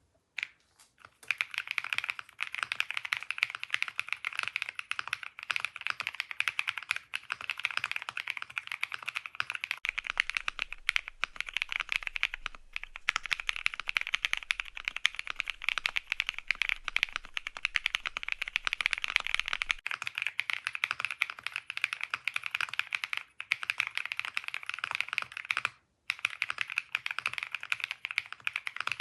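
Fast continuous typing on a Womier ERA75 aluminum-cased mechanical keyboard: a dense stream of key clicks, with a couple of brief pauses.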